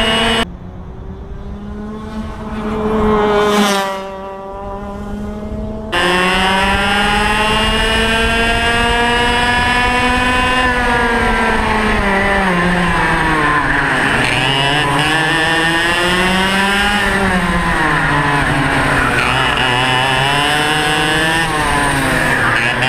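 Onboard sound of a two-stroke racing kart engine at racing speed, its pitch climbing along the straights and dropping as it slows for corners, several times over. For the first few seconds the sound is quieter and muffled, with a brief loud swell as something passes. Then the full engine note cuts back in suddenly.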